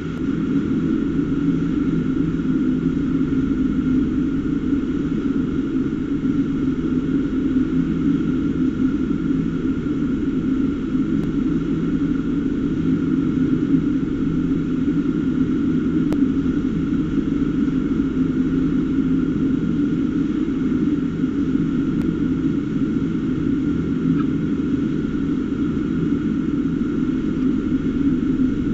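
A steady, unchanging low mechanical drone with a fainter high whine above it.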